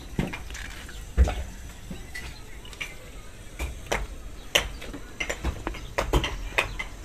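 Scattered clicks and light knocks of spice jars, a small steel container and a plastic spice packet being handled, with one louder thump about a second in.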